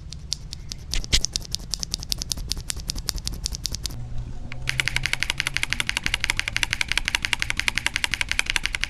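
Durock Piano POM linear keyboard switches with 63.5 g springs, clacking as they are pressed and released over and over. The strokes come steadily at first, then from about halfway much faster and brighter, in a rapid run.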